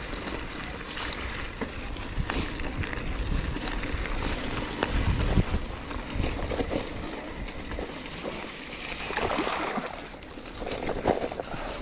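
Gravel bike riding along a gravel farm track: tyres crunching and rolling over loose stones, with small clicks and knocks from the bike, and low wind buffeting the microphone.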